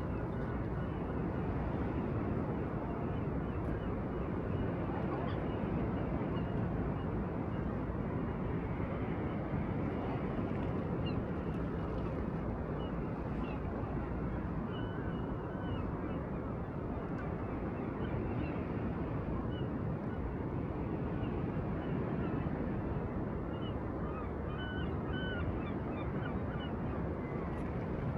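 Steady wash of the sea and wind, with faint short bird calls now and then.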